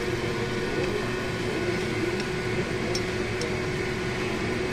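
A steady kitchen hum with a rushing noise and one constant low tone, with a few light clicks of wooden chopsticks against a stainless steel pot as they stir greens in boiling water.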